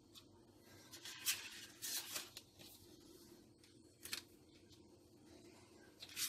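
Dry lasagna sheets being laid into a glass baking dish by gloved hands: a few faint, brief scrapes and rustles, about a second, two and four seconds in and again near the end.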